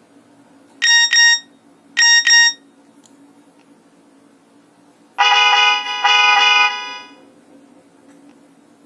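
Nokia 2865 phone's speaker playing short electronic alert tones: two quick high double-beeps about a second apart, then two longer, lower buzzy notes about five seconds in.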